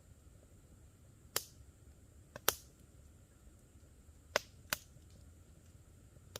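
Wood campfire crackling: five sharp pops spaced unevenly, the loudest about two and a half seconds in, over a faint steady hiss.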